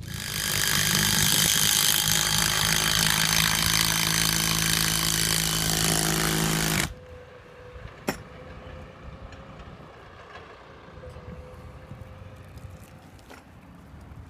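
A loud motorised power tool running steadily with a hum under its noise for about seven seconds, then cutting off suddenly. After it, quieter background with one sharp click.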